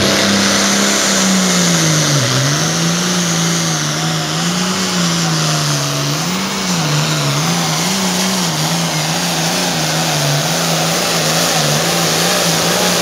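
Hot Farm class pulling tractor's diesel engine running at full power under load. Its pitch dips about two seconds in, then wavers up and down repeatedly, with a high whine above the engine note.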